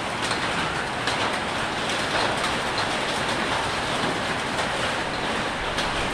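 Heavy hailstorm: a dense, steady clatter of hailstones, mixed with pouring rain, striking hard surfaces.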